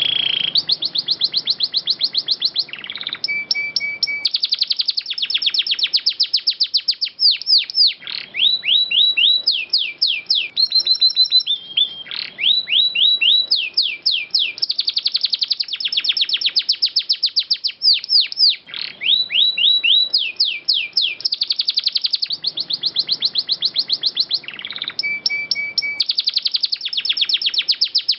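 Domestic canary singing a long, unbroken song of fast rolling trills and rapidly repeated high chirps. The song starts abruptly out of silence.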